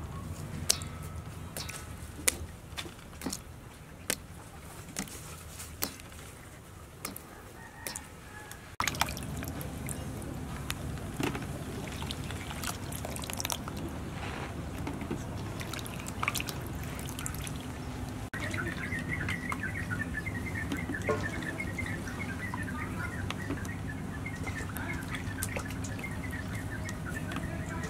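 Water dripping and splashing in a steel bowl of peeled bananas, with separate sharp drips and clicks, then denser sloshing as the bananas are lifted out by hand. About two-thirds of the way in, birds start chirping, many short high chirps.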